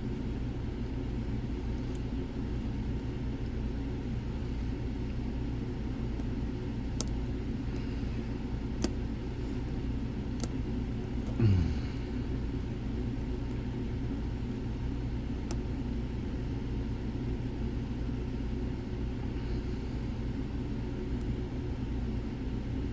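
Steady low background rumble with a few faint clicks from a lock pick working the pins of a six-pin Lockwood Twin padlock. About halfway through, a short sound drops quickly in pitch; it is the loudest thing here.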